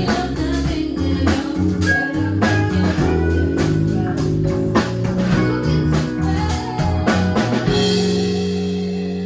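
Music: a band with guitar and drums playing, ending on a held final chord from about eight seconds in.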